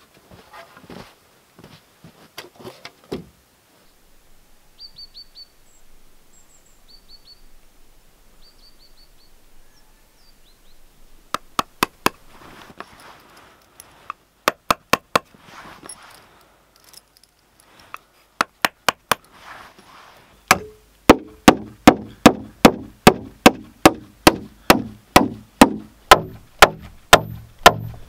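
A hammer driving nails into pine floor joists: light taps in short bunches, then from about two-thirds of the way in a steady run of hard blows, about three a second. Earlier, a small bird gives a few short chirps between scattered knocks of boards being handled.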